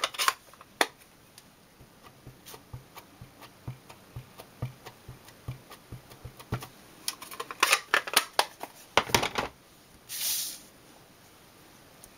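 Clear rubber stamp on an acrylic block tapped repeatedly onto a chocolate chip ink pad: a run of light plastic taps and clicks that grows into a denser, louder cluster of clicks, followed by a short hiss.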